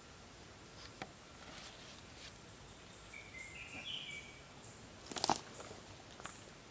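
Quiet forest ambience with a short whistled bird call about three to four seconds in, and a few sharp clicks or knocks, the loudest a quick cluster about five seconds in.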